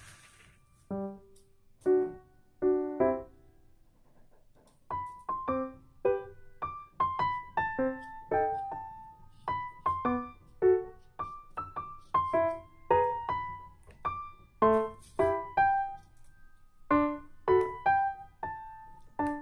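Background piano music: a few separate notes over the first few seconds, then a continuous flowing melody from about five seconds in.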